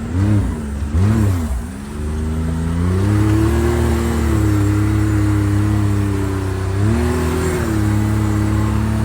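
Can-Am Maverick XMR Turbo RR's turbocharged three-cylinder engine revved with two quick blips, then held at high revs with a brief dip about seven seconds in, the turbo whistling over the engine note.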